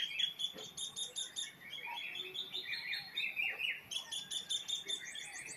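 Small birds chirping in the background: many quick, high, repeated chirps overlapping throughout.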